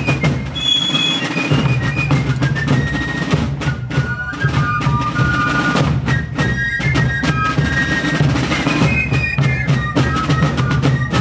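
Fife and drum corps playing a march, the fifes carrying a high melody over a steady beat of drums.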